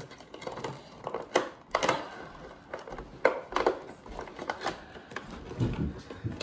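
WWE Elite action-figure box of cardboard and clear plastic being pried open by hand: irregular crinkles, clicks and scrapes of the packaging, with a couple of duller knocks near the end.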